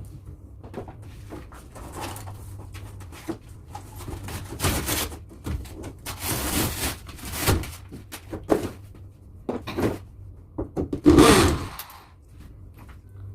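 Irregular scraping, tearing and knocking as a wallpapered partition wall is pried apart by hand, with one loud rasping burst near the end.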